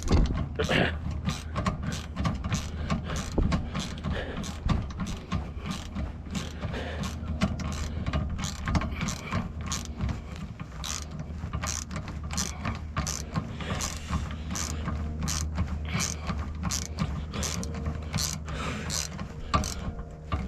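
Hand ratchet wrench clicking in quick, uneven runs as it is cranked back and forth to tighten hitch bolts, over a steady low hum.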